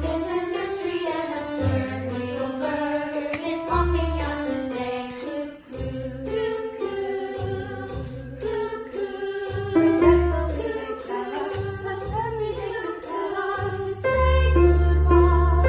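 Music: voices singing a melody over accompaniment with held low bass notes, louder near the end.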